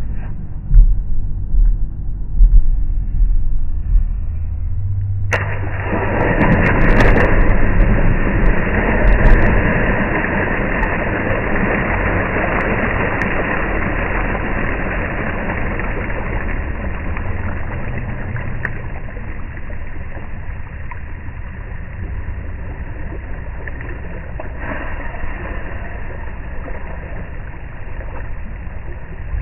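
A person jumping into a backyard swimming pool: a few low thumps, then a sudden loud splash about five seconds in, followed by long churning water noise that slowly fades.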